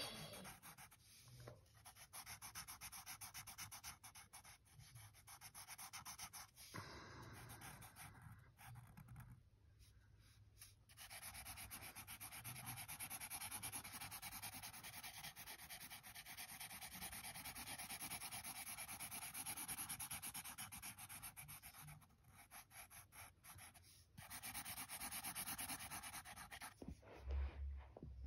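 Sharpie fine-point marker scribbling rapidly back and forth on sketchbook paper, a faint scratchy rubbing as an area is filled in solid black, with a few brief pauses.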